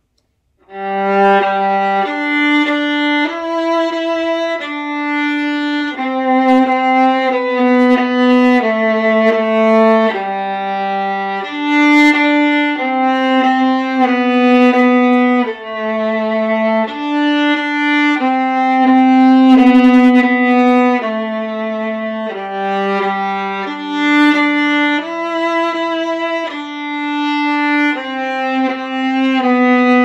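Solo viola bowed, playing a melody of separate held notes, one after another, starting about a second in.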